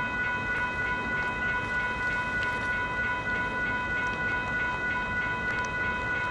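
Railroad crossing warning bell ringing steadily, about three strokes a second, with a clear ringing tone: the crossing signals are still activated by the train standing on the crossing.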